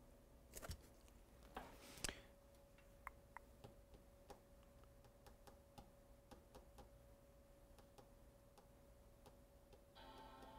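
Near silence with a faint steady hum. A few soft clicks and knocks from hands on a laptop come in the first couple of seconds, the loudest about two seconds in, followed by scattered faint ticks. A faint tone with several pitches begins near the end.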